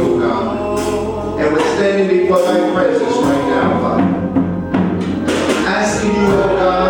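Gospel church music with singing, voices held on sustained notes over instrumental backing.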